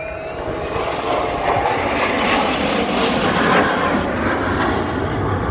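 Airplane passing overhead in a flyby, its engine noise swelling to a peak about halfway through and then easing off slightly.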